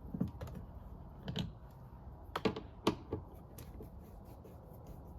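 Scattered sharp clicks and taps, about half a dozen, the loudest in the middle, from a Phillips screwdriver and screws being worked out of the plastic door trim panel and handled.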